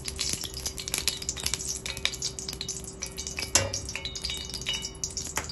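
Desi ghee heating in a stainless steel pot with a steady fine crackle, while a metal spoon stirs and scrapes against the pot. There is a knock about three and a half seconds in, and a light ringing clink shortly after.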